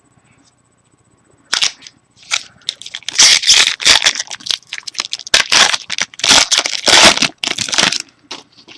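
A 2013 Bowman Chrome football card pack's wrapper being torn open and crumpled by hand: loud crinkling and tearing that starts about a second and a half in and goes on for several seconds.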